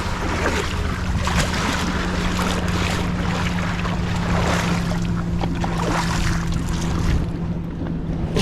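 An outboard-powered aluminium boat under way: a steady low engine tone under the rush of water along the hull and wind on the microphone, swelling every second or so.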